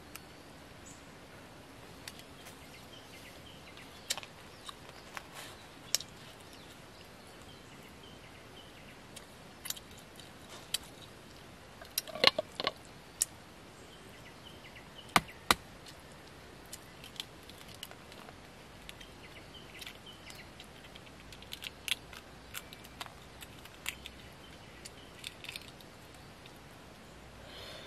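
Scattered sharp clicks and crackles of a boiled eggshell being cracked and peeled off by hand, loudest around the middle.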